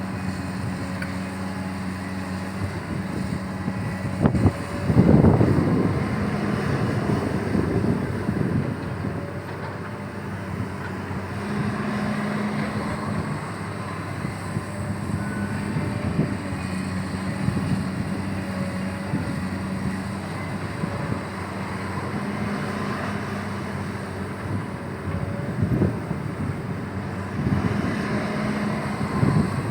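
XCMG XE215C excavator's diesel engine running steadily, with a louder surge about five seconds in and again near the end.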